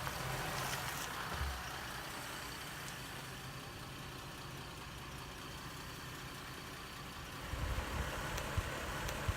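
Car engine idling steadily. A heavier rumble comes in with a couple of sharp clicks in the last two seconds.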